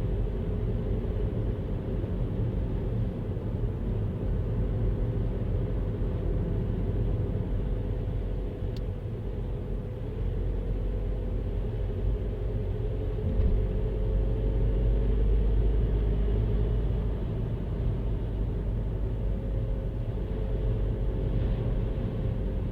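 Car driving along a road: steady low engine and tyre rumble with a faint constant hum, swelling briefly about two-thirds of the way through.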